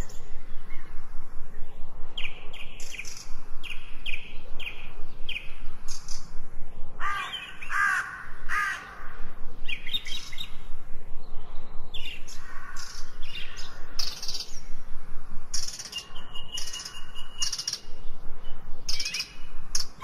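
Several birds chirping and calling, with quick runs of short high notes, and a louder, lower call repeated a few times about seven to nine seconds in.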